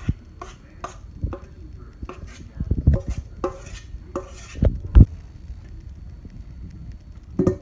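Metal spoon scraping and clinking against a metal mixing bowl while scooping out thick ketchup glaze, a series of short scrapes with two louder knocks about three and five seconds in.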